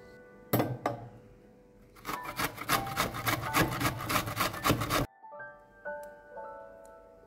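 Red onion being grated on a stainless steel box grater: a quick, even run of rasping strokes for about three seconds that stops abruptly, after a single knock about half a second in. Soft piano music plays underneath.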